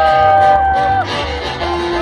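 Live band playing a paso doble: a long held melody note for about a second, then shorter notes, over a bass beat about twice a second.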